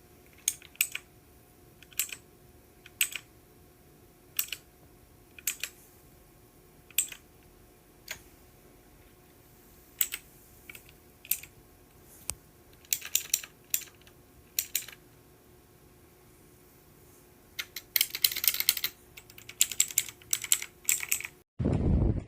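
Keys of a Leaven K550 mechanical keyboard with clicky blue switches being pressed one at a time, roughly a second or two apart, then typed in a fast run about eighteen seconds in. A short, loud low sound follows an abrupt cut near the end.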